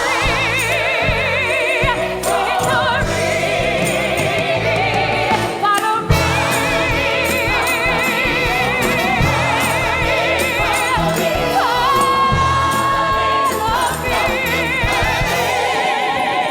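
Musical theatre singers with a pit orchestra, holding long notes with heavy vibrato in a choir-like, gospel-style ensemble sound. No words can be made out.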